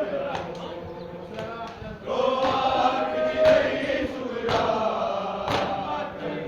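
A group of men chanting a noha (mourning lament) together. Sharp chest-beating strikes of matam fall about once a second beneath the singing.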